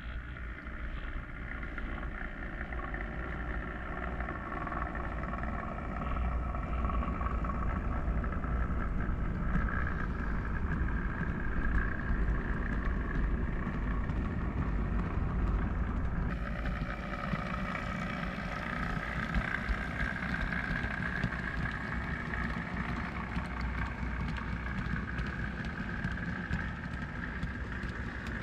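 Model railway locomotive running on the layout: a steady motor and gear whine that wavers a little in pitch, over the rumble of wheels on the track. The sound changes abruptly about sixteen seconds in.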